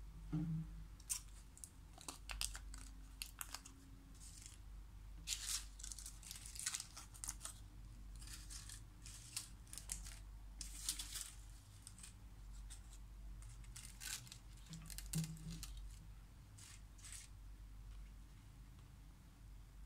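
Crumpled foil chocolate wrappers crackling and crinkling as they are handled and spread out, in irregular bursts with sharp little clicks.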